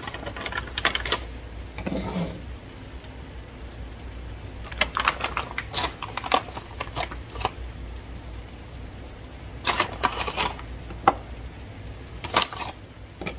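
Frozen gyoza potstickers being set one by one into a hot pan of stir-fried vegetables: short bursts of rapid crackling and clicks every few seconds.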